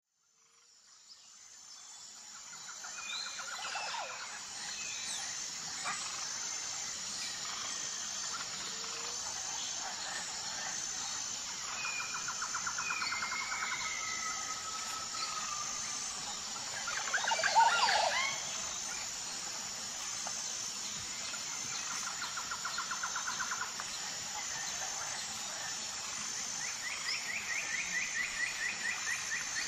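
Birds chirping and trilling over a steady high-pitched hum, fading in over the first few seconds, with a louder flurry of calls about two thirds of the way through.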